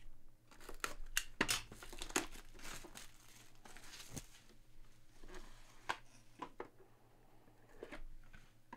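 Cardboard trading-card box being opened by hand: a run of short rustles, scrapes and tearing as the seal is broken and the inner box slides out of its sleeve.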